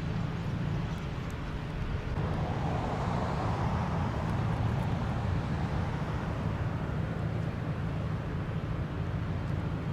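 Steady low rumble of road traffic, swelling briefly about three to four seconds in as a vehicle passes.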